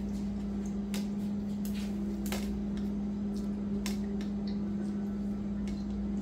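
A spoon tapping and scraping in a small metal mesh strainer, a few sharp clicks spread over several seconds, over a steady low hum.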